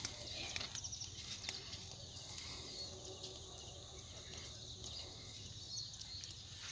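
Faint outdoor ambience of insects and birds calling, with a few soft clicks.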